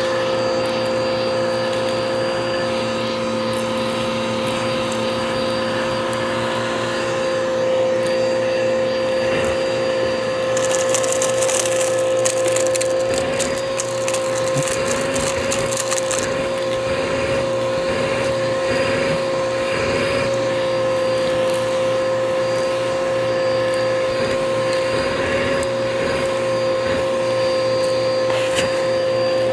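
Vacuum cleaner running with a steady high-pitched motor whine. From about ten seconds in, for some five seconds, crunchy debris crackles and rattles as it is sucked up.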